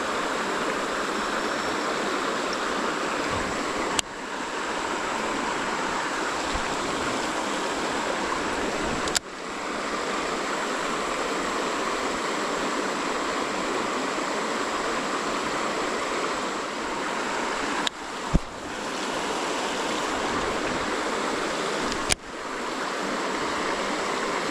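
Creek water rushing steadily over rocks. A few sharp clicks break it about every four to nine seconds, each followed by a brief dip in the sound.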